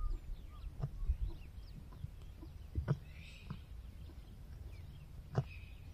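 A zebra cropping grass close by: short, sharp tearing snaps every second or so, the loudest about three and five and a half seconds in, over a low rumble, with faint bird chirps behind.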